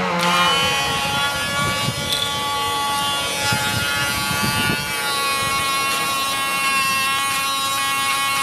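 Handheld electric pet nail grinder switched on, its small motor running with a steady whine. Some low rubbing and knocking noises come in around the middle.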